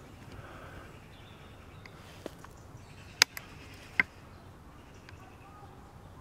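Quiet background broken by a few sharp clicks: a faint one about two seconds in, a loud one just after three seconds followed by a softer one, and another loud one about four seconds in.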